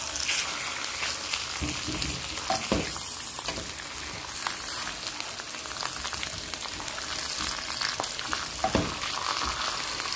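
Pork belly slices sizzling steadily in hot fat in a nonstick frying pan over a low gas flame. A few sharp ticks and pops sound as the slices are turned.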